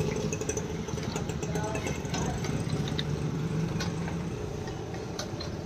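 An engine idling steadily, with scattered small clicks.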